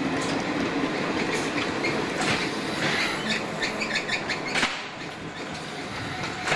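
Class 302 slam-door electric multiple unit running slowly along the platform, with clusters of short high squeaks and clicks from its wheels in the middle. About two-thirds of the way through, the sound drops abruptly to a quieter, steadier train hum.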